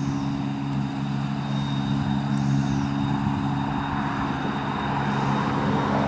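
Deutz-Fahr 5690 HTS combine harvester and the John Deere 6215R tractor beside it running steadily while harvesting spring barley, a constant engine hum. A rushing noise builds over the last couple of seconds as the combine's unloading auger starts pouring grain into the trailer.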